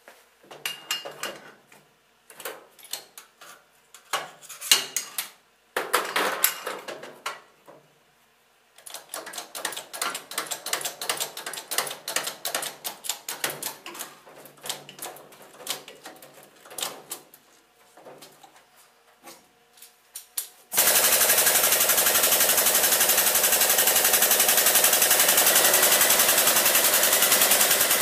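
Metal clicks and knocks as the mold is set into a benchtop injection molder and its hydraulic bottle jack is worked. About three-quarters of the way through, a loud steady machine noise with a fast, even pulse starts suddenly and keeps going.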